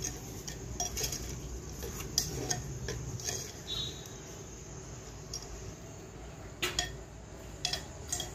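Ladle stirring chickpeas into masala in a cooking pot, with irregular knocks, clinks and scrapes of the ladle against the pot.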